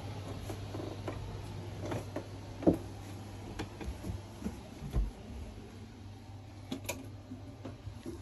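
Steady low hum inside a motor yacht's cabin, with scattered knocks and clicks as someone moves through the passage. The loudest knocks come about two and a half and five seconds in.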